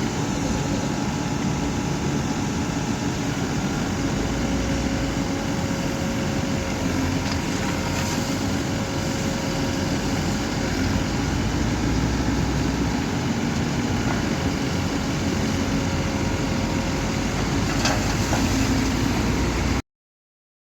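Diesel engine of a Tata Hitachi Shinrai Prime backhoe loader running steadily at work, with a couple of faint clicks; the sound cuts off abruptly near the end.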